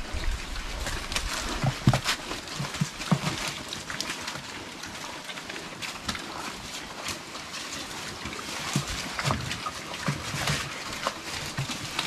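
A group of weaned piglets feeding on fresh green leaves: steady crunching, chewing and rustling of the leaves, with a few short low grunts.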